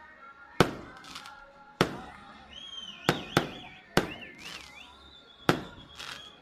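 Fireworks going off: seven sharp bangs, roughly one a second, some in quick pairs. Through the middle a high whistle wavers up and down.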